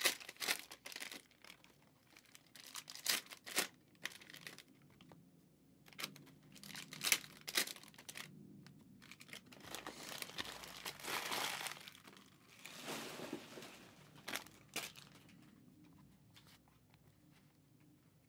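Cellophane wrappers of trading-card packs being torn open and crinkled, in irregular crackles with a longer rustling stretch about ten to thirteen seconds in; it quietens near the end.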